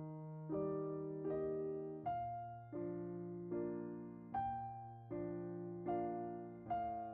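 Background music: soft electric piano playing chords, a new chord struck about every three-quarters of a second and fading between strikes.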